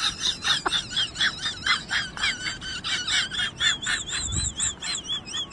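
Rapid high-pitched chirping, about five chirps a second, turning into a high wavering whistle in the second half.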